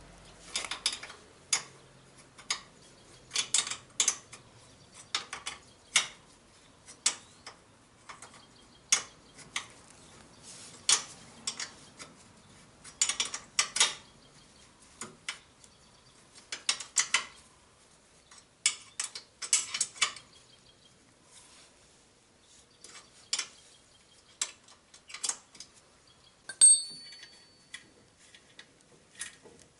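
Hand tools clicking and clinking against the metal caster-wheel mount of a sprayer cart, in irregular bursts of sharp clicks. Near the end comes one loud metal clank that rings briefly.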